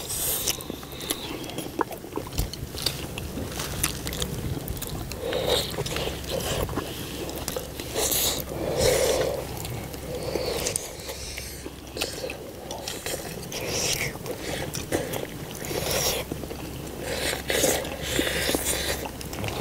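Mukbang eating sounds: people chewing and slurping braised spicy chicken drumsticks, with irregular smacks and sucks of the mouth at the meat.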